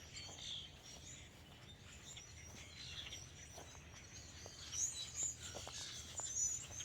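A flock of small birds chirping faintly, many short high calls overlapping, a few louder calls about two-thirds through and near the end, over a low steady hum.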